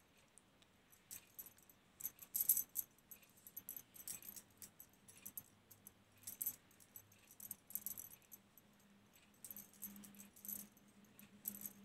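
Faint, irregular light metallic clicks and jingles of hands crocheting with a steel crochet hook.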